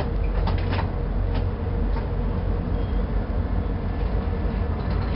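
A railway vehicle's diesel engine running steadily with a low rumble, with a few light clicks in the first couple of seconds.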